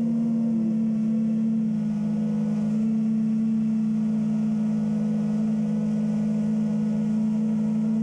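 Apex FPV quadcopter's electric motors and propellers humming steadily, heard from the onboard camera; several close tones that drift only slightly in pitch.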